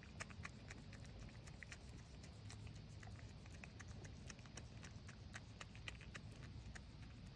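Goats moving about and grazing close by: faint, irregular small clicks and ticks over a steady low rumble.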